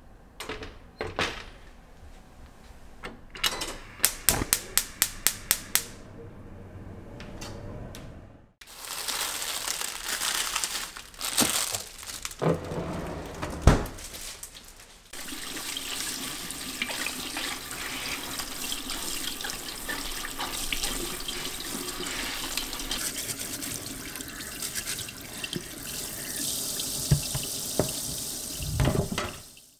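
Kitchen tap running steadily over a cucumber being rinsed in a mesh strainer, which fills the second half. Before that come scattered knocks and a quick run of about eight clicks.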